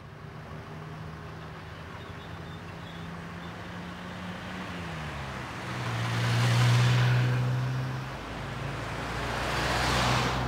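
Road traffic: car and van engines running at low speed, one engine's tone falling in pitch about five seconds in, then a van passing close with a louder swell of engine and tyre noise, and another vehicle passing near the end.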